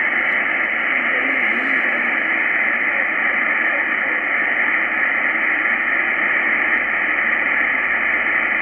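Icom IC-R8600 shortwave receiver playing steady band noise on the 20-metre amateur band in upper sideband: an even, muffled hiss with no highs and no clear station.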